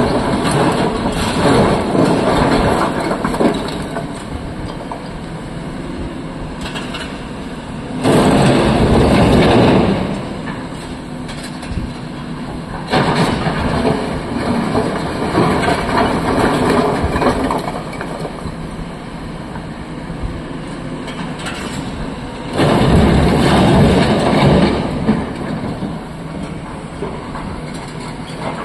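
A SANY hydraulic crawler excavator's diesel engine running under load while its steel bucket works a pile of broken quarry rock and loads a dump truck. Rock clatters and grinds in heavy bursts about 8 seconds in and again about 23 seconds in.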